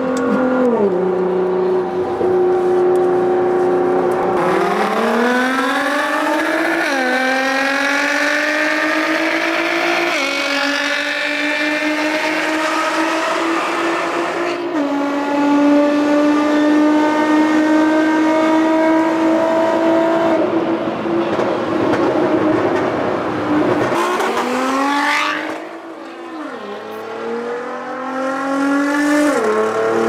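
Car engine under hard acceleration, its pitch climbing and then dropping back at each of several upshifts. It holds a steady note for a while, eases off, then pulls up through the revs again near the end.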